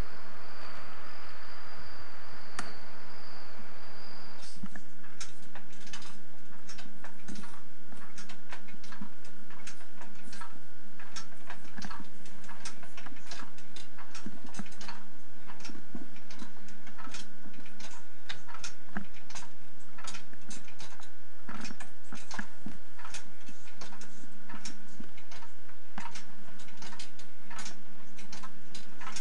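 Wind-up baby swing ticking steadily, its clockwork mechanism clicking about twice a second. The ticking starts about four seconds in, after a stretch of steady hiss.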